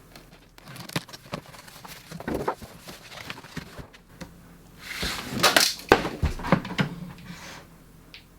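Handling noises from a newly arrived microwave being unpacked and moved: scattered knocks and clicks, with a busier stretch of rustling and clunks about five seconds in.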